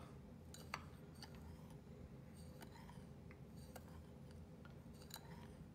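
Faint, scattered ticks of a metal spoon against a small ceramic bowl as dry seasoning is stirred, the clearest about a second in, over a quiet room hum.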